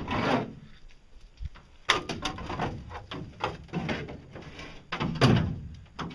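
A large homemade cover being lifted and set down on a pedal boat, knocking and scraping against the hull in a string of thuds; the loudest knocks come right at the start and about five seconds in.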